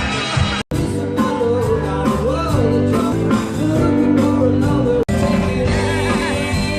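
Music with a singer and guitar, cut off abruptly twice for a split second.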